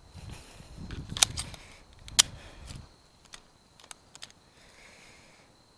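Two .22 LR pistol shots about a second apart, fired from a Glock with an Advantage Arms .22 conversion kit, followed by a few faint clicks.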